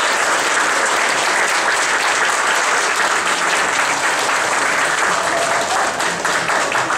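Audience applauding steadily, a dense sustained clapping that begins to thin into separate claps near the end.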